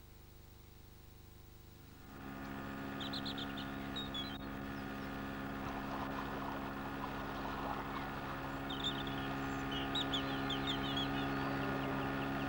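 A faint low hum at first. About two seconds in, outdoor ambience comes up: a steady low hum with small birds chirping in short runs, more of them towards the end.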